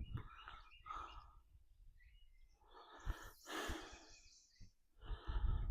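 A man's heavy, labored breathing: several long, breathy sighs and exhales, the loudest about three seconds in. The breathing comes from chest congestion and bronchitis.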